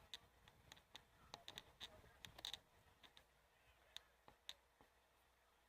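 Near silence with faint, scattered sharp clicks, most of them in the first half.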